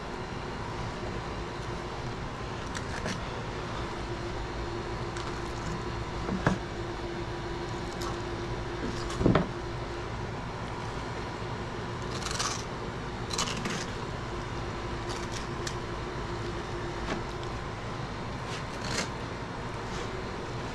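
Knife cutting and scraping through an alligator gar's hard, scaly hide. It comes as scattered short scrapes and crunches, with one louder knock about nine seconds in, over a steady low hum.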